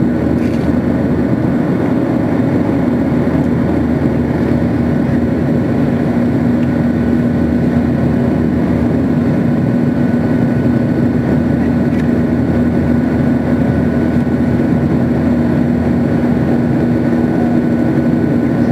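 Cabin noise of a Boeing 737 in flight, heard from a window seat over the wing: a steady jet-engine and airflow drone with a constant low hum, unchanging throughout.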